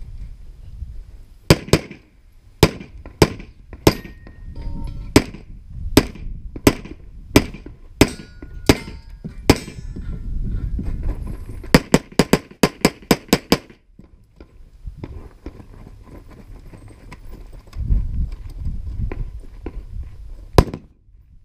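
Gunshots fired through a practical shooting stage. There are about a dozen shots spaced roughly half a second apart, a pause, then a fast string of about seven shots, and a single last shot near the end.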